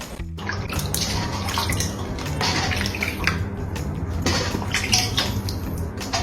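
Water splashing in uneven bursts, like a bath being filled or stirred.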